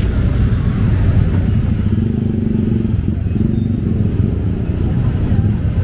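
Street traffic: a steady low rumble of motor vehicle engines running close by.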